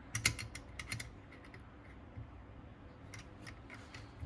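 Several short, light clicks and scrapes of small metal parts being handled, in two clusters: one near the start and one near the end, as exhaust pipes and their fine-thread nuts are fitted to a model aircraft engine.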